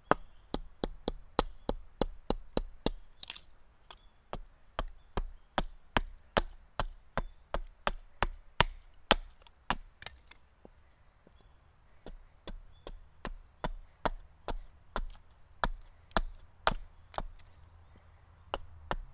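A blade chopping into a wooden board in quick, regular blows, about two to three a second, roughing out the shape of a wooden spatula. The blows stop briefly about ten seconds in, then resume at the same pace.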